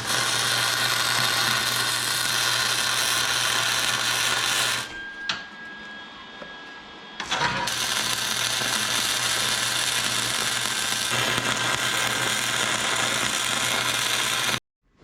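Electric welder laying two welds on the mini bike's shifter: a steady sizzling hiss with a low hum, starting and stopping abruptly, for about five seconds, then after a short pause for about seven seconds more.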